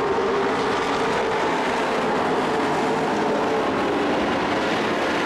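A pack of dirt-track race trucks running at racing speed around the oval, their engines blending into one loud, steady noise.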